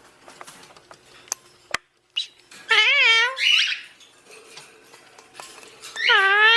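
Ringneck parrot calling twice, each a loud wavering squawk that bends up and down in pitch, the first about three seconds in and the second near the end. Light clicks and taps sound between the calls.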